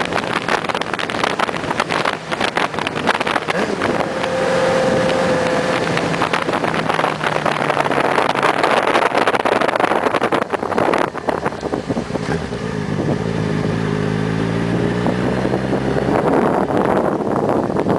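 Yamaha XJ6 motorcycle at high speed: heavy wind rush on the microphone, with the engine note coming through more clearly in the last several seconds as its pitch changes.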